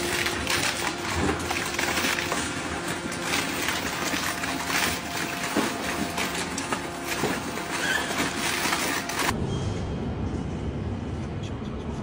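Orange-peel grab's steel tines closing into a heap of scrap batteries: a dense clatter of hard casings knocking and crunching together. About nine seconds in it changes abruptly to a lower rumble with only a few knocks.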